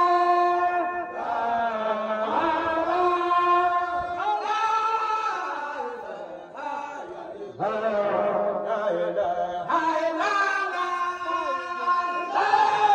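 A group of men chanting a devotional dhikr in unison, holding long melodic notes. It grows quieter about six seconds in and comes back strongly just before eight seconds in.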